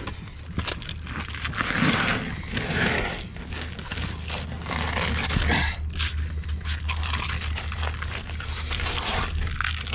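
Triggerfish skin being pulled and torn away from the flesh by hand, in irregular wet ripping and scraping bursts, over a steady low hum.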